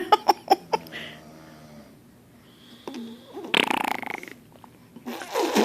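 Snoring: two long, rough snorts, the first about three and a half seconds in and the second about five seconds in, after a few small clicks near the start.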